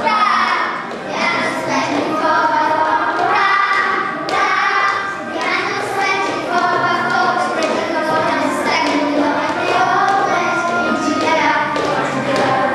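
A group of children singing a nursery rhyme together.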